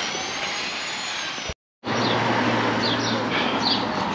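Steady engine and road noise of a camping-car driving, heard from inside the cab, with a faint high whine. It drops out to silence for a moment about a second and a half in, then comes back with a steady low hum.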